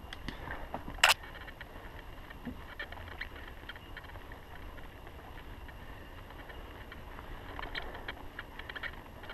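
Mountain bike rolling along a dirt singletrack: a steady low rumble from the ride, with scattered clicks and rattles from the bike and one sharp, loud click about a second in.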